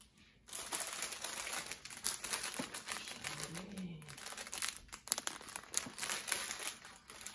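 Clear plastic packaging bag crinkling as it is handled with a pair of socks inside, in irregular rustles that start about half a second in.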